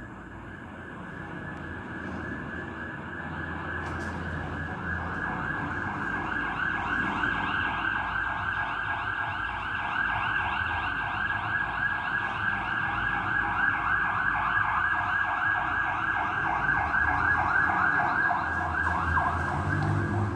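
Fast-cycling two-tone siren of a MAN turntable-ladder fire engine (SHD 25) on an emergency run, growing steadily louder as it approaches, over the low rumble of heavy truck engines.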